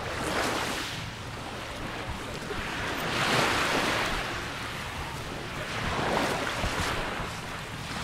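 Small sea waves washing onto a sand-and-pebble shore, swelling and fading three times, the middle wash the loudest.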